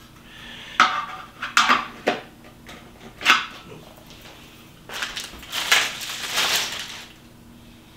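Hard plastic parts being handled during assembly: a few sharp clicks and knocks in the first three and a half seconds, then a longer stretch of rustling and scraping about five to seven seconds in.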